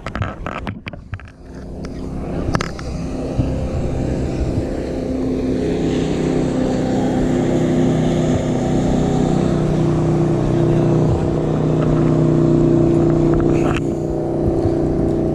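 A motorboat engine running steadily, its drone growing louder over the first several seconds as the boat comes nearer, after a few sharp knocks near the start.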